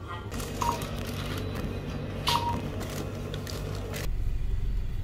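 Two short electronic beeps about a second and a half apart, from a supermarket checkout barcode scanner reading items, over shop background noise. Near the end this cuts off suddenly to a steady low rumble inside a car.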